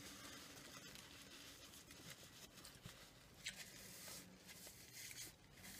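Near silence with faint sounds of eating and a few soft clicks. A short paper-napkin rustle comes about three and a half to four and a half seconds in.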